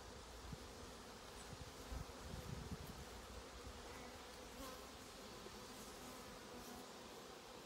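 Honeybees buzzing around an open hive, a faint steady hum, with a few low thumps in the first three seconds.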